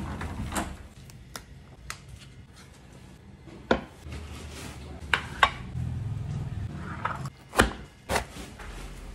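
Kitchen food-prep sounds: scattered sharp knocks and clicks of a knife, pork pieces and a glass bowl against a wooden chopping board, then a knife cutting through a cabbage onto the board, with the loudest chops near the end.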